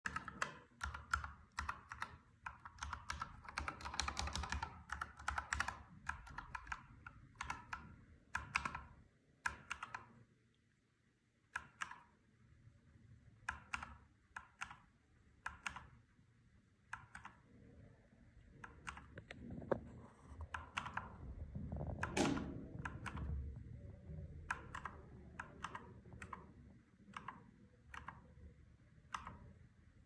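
Akko 3098S mechanical keyboard keys clacking: a quick run of typing for the first few seconds, then single key presses every second or so, with a short pause near the middle.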